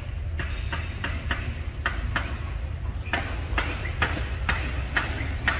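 Macaques chewing ripe mango close up: irregular wet smacking and clicking of lips and teeth, about three clicks a second, over a low steady rumble.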